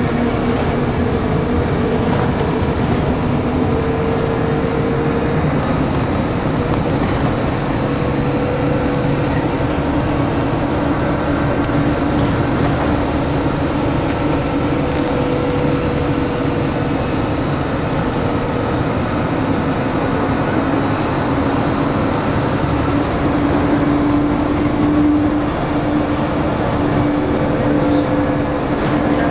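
Steady running noise heard from inside a moving train, with a constant low hum that edges up slightly in pitch in the last few seconds.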